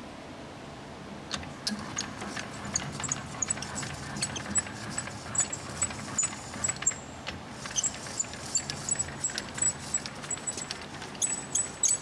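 Clausing Colchester Master 2500 engine lathe with its carriage being hand-cranked back along the bed: irregular light metallic clicks and ticks, some with a thin high ping, over a faint low hum.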